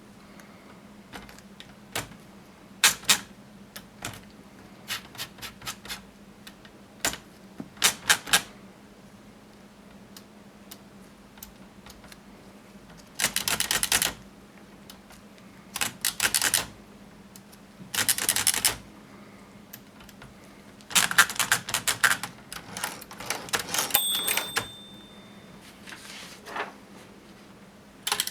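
1950s Princess manual typewriter being typed on: single key strikes clacking, then several longer runs of rapid mechanical clicking. A brief single bell-like ring sounds near the end.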